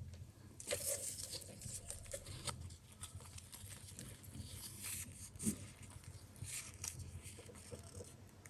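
Faint, scattered rustling and light crinkling of a paper-yarn crochet chain being handled and laid out for measuring, over a low steady hum.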